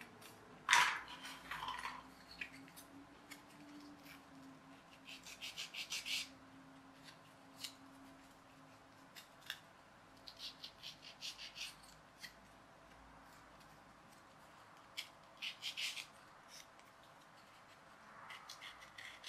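Small laser-cut balsa wood parts being worked by hand: a sharp tap about a second in, then a few short runs of quick, light scratchy clicks with scattered single ticks between quiet spells.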